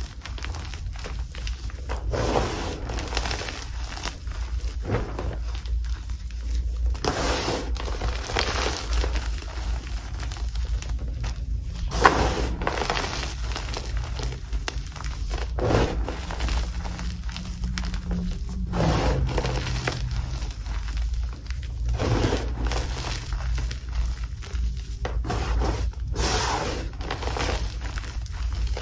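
Hands squeezing and crumbling handfuls of dip-dyed Magking gym chalk, soft crunchy chunks in loose powder, giving a crunch every second or two. One sharper crack about twelve seconds in.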